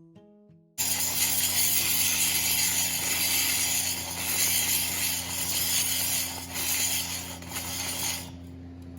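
Angle grinder starting abruptly about a second in and grinding the old brackets off a Ford 8.8 rear axle housing: a steady motor hum under a loud grinding hiss, easing near the end.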